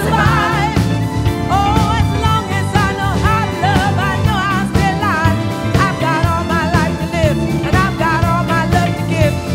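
Background rock music with a singing voice over a steady beat and bass line.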